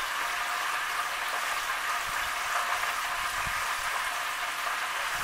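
Thick flour-seasoned pork chops frying in hot grease in a skillet: a steady sizzle and bubbling of the oil, with a couple of soft low knocks midway.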